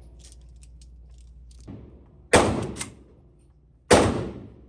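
Gunshots at a shooting range: a loud shot about two seconds in, a sharper crack about half a second after it, and another loud shot about a second and a half later, each ringing out briefly.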